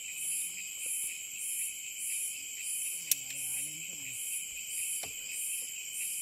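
Night insects chirring steadily in high bands, one of them pulsing about every 0.6 s. About three seconds in comes a single sharp click, the loudest sound, followed by a brief low hum.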